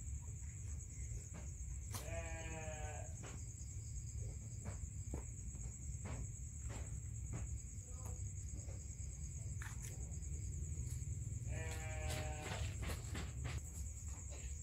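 A cat meows twice, a drawn-out wavering call about two seconds in and again near the end, amid scattered light taps and scratches. A steady high insect chorus and a low rumble run underneath.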